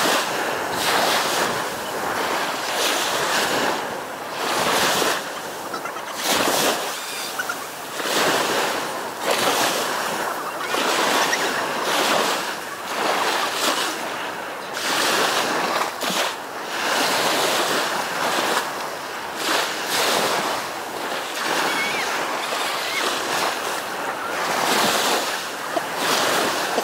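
Small waves washing up a sandy beach, the surf rising and falling in surges every second or two.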